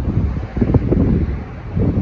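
Wind buffeting the microphone in irregular gusts over the low rumble of a departing diesel locomotive.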